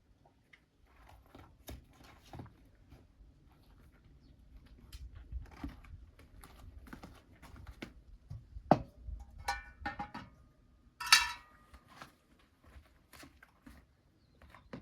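Cookware and dishes being handled: scattered light knocks and clicks, with a few short ringing clinks about two-thirds of the way through, the loudest one ringing on briefly.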